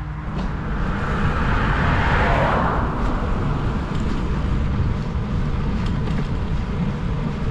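A car passing the cyclist on the road, its tyre and engine noise swelling to a peak about two seconds in and then fading. Under it runs a steady low rumble of wind on the camera microphone.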